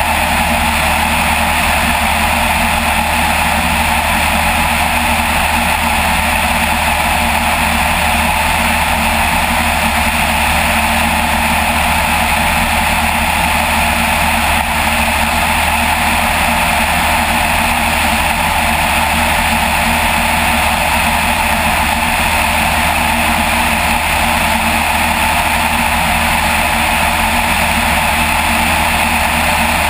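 Light aircraft in cruise flight: its engine and propeller run at a steady drone, mixed with a strong rush of air over the camera.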